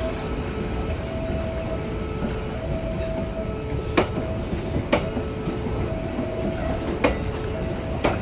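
Passenger coaches of the KA Progo train rolling slowly past close by: a steady rumble with the wheels clacking over rail joints, two pairs of sharp clacks about a second apart in the second half. A two-tone signal alternates high and low, about once a second, over it.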